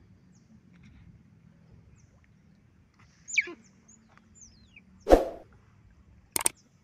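Video-editing sound effects for an animated subscribe button: a short whoosh about five seconds in, then a quick double mouse click near the end. Before them, two short high-pitched falling squeaks over a faint low background.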